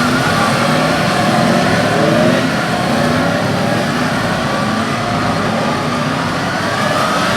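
Several police motorcycles running at low speed in a drill display, their engines revving up and down, with many engine notes overlapping.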